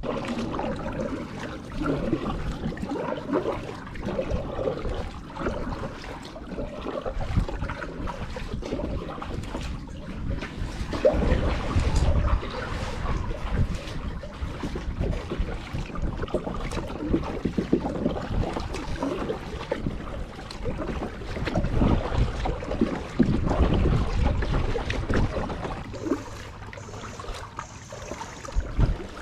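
Kayak paddle splashing and water trickling off the blade, with gusts of wind rumbling on the microphone.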